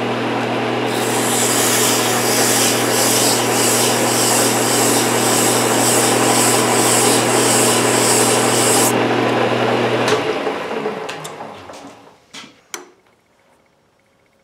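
Metal lathe running with a steady hum while a strip of abrasive cloth is held against the spinning threads, a loud even hiss of abrasive rubbing metal that takes the burr off the freshly cut threads. The abrasive lifts off about nine seconds in, the lathe winds down and stops about two seconds later, and a couple of small clicks follow.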